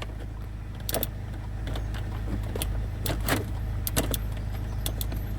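Small plastic clicks and knocks as a hazard-light switch is handled and pushed into its slot in a Land Rover Freelander 1's dashboard, over a steady low hum.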